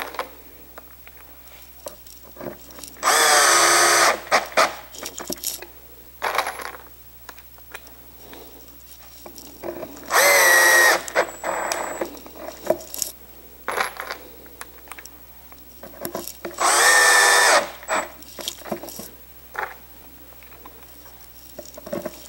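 Cordless driver drill driving self-drilling, self-countersinking screws into the wooden panels of a bat house. It makes three short runs of about a second each, several seconds apart, with small clicks and taps between them as the screws are handled and set.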